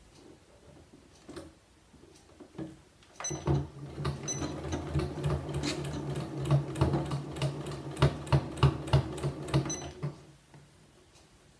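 Janome Memory Craft 9900 computerised sewing machine stitching steadily for about seven seconds: a motor hum with rapid needle clicks. It starts about three seconds in, after a few soft handling clicks, and stops near the end.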